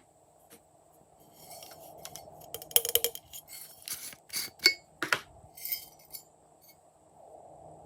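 Small hard objects clinking and clicking, probably add-ins and containers handled while mixing slime, over a crackly rustle. A run of sharp clicks falls from about three to five seconds in, then the sound dies down.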